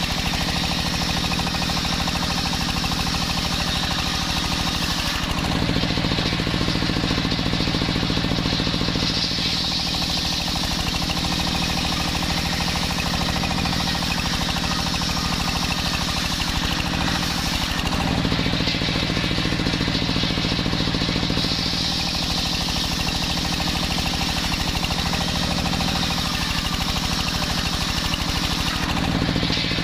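Homemade belt-driven circular bench saw running steadily while its large blade rips jackfruit wood lengthwise into boards. The cutting noise grows louder in several stretches as the plank is pushed through, over a constant hum from the drive.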